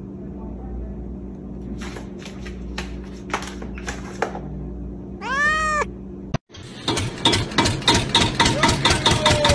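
A cat meows once, a short meow that rises and falls, over a steady low hum and a few soft clicks. Then a kitten purrs loudly with a fast, regular pulse, like an engine idling.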